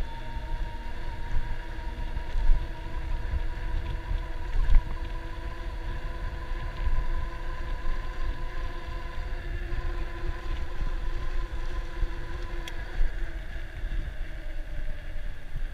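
Electric bike's motor whining steadily while riding, a thin high tone that drifts slightly upward, over a rumble of wind on the microphone.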